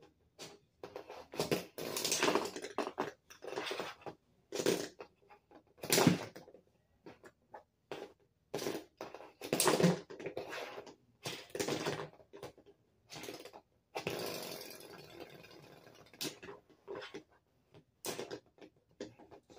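Lego spinning tops spinning and knocking together, hard plastic clattering in short bursts, with a longer whirring spin about two-thirds of the way through that fades out.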